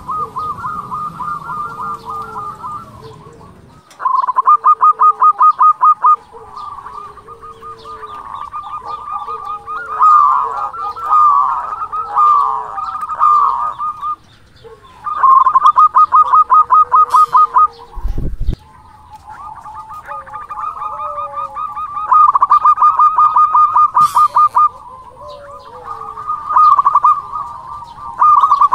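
Zebra dove (perkutut) cooing song: bouts of a few seconds each of very rapid staccato notes, separated by short pauses, with lower falling coo notes between them. A low thump about eighteen seconds in.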